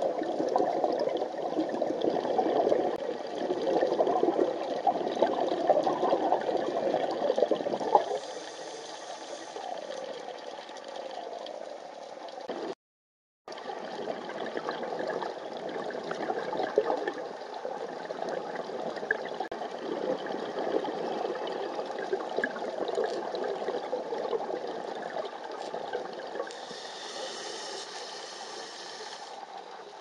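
Underwater sound picked up through a dive camera's housing: scuba regulator bubbles crackling and rushing, loudest for the first eight seconds and quieter after, with a brief cut to silence about thirteen seconds in.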